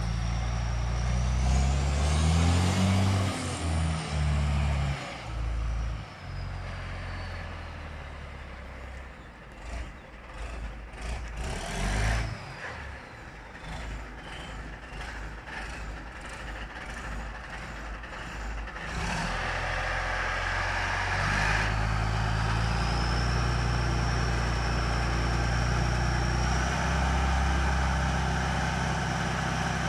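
Motor grader's big turbo diesel engine running as the grader drives and turns. It revs in the first few seconds with a high turbo whistle that climbs and then falls away, runs quieter through the middle with scattered crackles, then runs loud and steady from about two-thirds in as the turbo whistle rises again.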